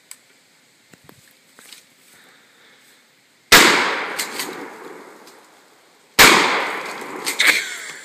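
Two blasts from a Mossberg 590A1 12-gauge pump-action shotgun, about two and a half seconds apart, each echoing and dying away over a couple of seconds. Short clacks follow each shot as the pump is worked.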